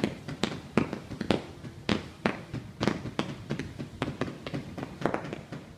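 Fireworks going off in a steady, irregular string of sharp bangs and crackling pops, about two a second.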